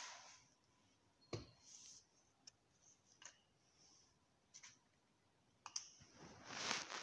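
Quiet kitchen handling of baking ingredients: scattered light clicks and taps of a plastic measuring spoon against jars and tins, then a soft rustling swell near the end.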